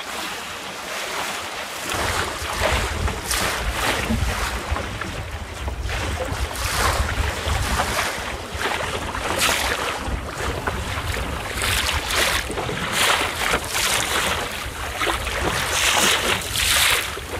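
Wind buffeting the microphone in gusty surges over the wash of choppy water around a small sailboat under way; the low wind rumble comes in about two seconds in.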